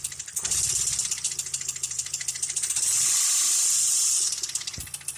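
Chevrolet Lanos 1.5 four-cylinder engine running with a rapid, steady knocking. A loud hiss comes in about three seconds in and stops about a second later.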